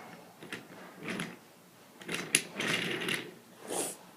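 Wooden toy train pieces knocking and scraping as they are handled, in several short clatters.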